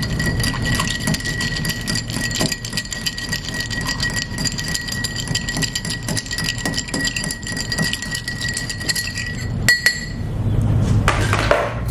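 Ice cubes clinking rapidly and steadily against the sides of a glass mixing glass as a bar spoon stirs a cocktail. The stirring stops with a louder clink about ten seconds in.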